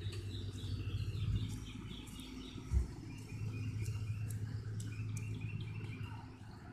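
Small birds chirping in runs of short, repeated high notes over a steady low hum, with a single thump about three seconds in.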